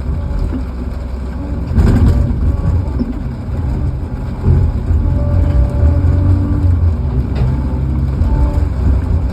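Log loader's engine running steadily under work, with thin whining tones that come and go and a heavy clunk about two seconds in.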